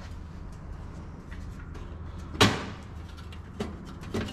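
Sheet-metal fuse-box panel being handled and worked loose from its cleco fasteners: a loud metallic clack about two and a half seconds in, then two lighter knocks near the end, with light clicks between and a steady low hum underneath.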